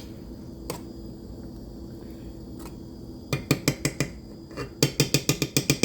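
A few seconds of low hum, then a utensil clinking rapidly and repeatedly against a cooking pot, about six or seven knocks a second, in two runs.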